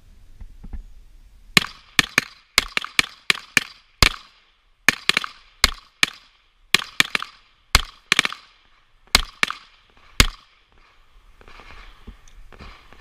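Pistol shots fired in quick succession during a timed field-shooting series: about twenty sharp reports over roughly nine seconds, some close together. The shooting stops a few seconds before the end.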